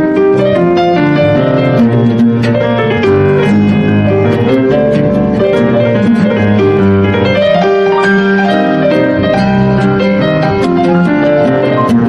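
Instrumental background music: a quick run of many notes over sustained low tones, steady in loudness.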